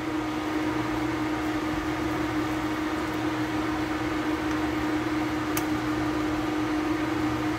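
Steady electrical hum with a constant low tone from a glass-top electric cooktop running under a pot of boiling broth, with a brief click about five and a half seconds in.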